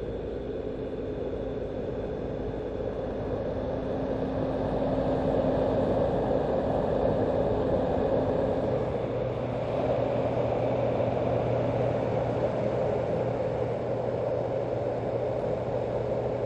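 Steady low rushing noise with a faint hum under it, growing a little louder about five seconds in.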